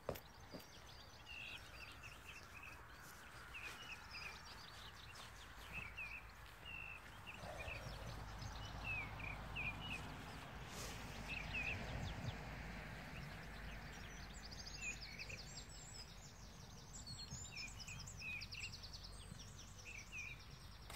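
Small birds singing: short chirps repeated throughout, with a fast high trill near the end, over a faint low rumble.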